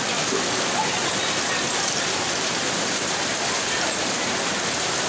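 Heavy rain falling steadily, a dense, even hiss of water.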